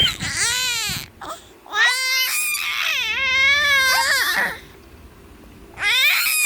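Baby crying in bouts: a short cry, then a long wavering cry of about two and a half seconds, a pause, and another cry starting near the end.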